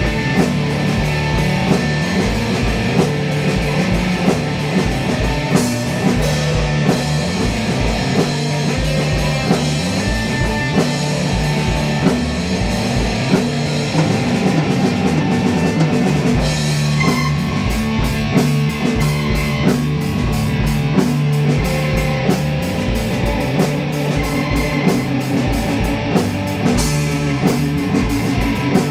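Band jamming with electric guitar and drum kit: a steady rock groove on a repeating low riff, the drummer moving to busier cymbal strokes about two thirds of the way in.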